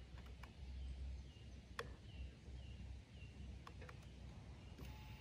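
Quiet outdoor ambience: a faint low rumble, a few sharp small clicks, and faint short high chirps of birds. Near the end a thin, steady whine begins.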